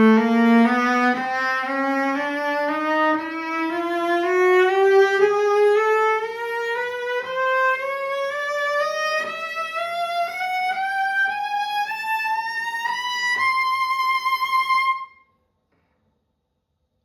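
Jean-Baptiste Thouvenal c.1850 Mirecourt cello, bowed solo, climbing a slow ascending scale note by note over more than two octaves into its high register and ending on a held high note. It stops about 15 seconds in, followed by silence.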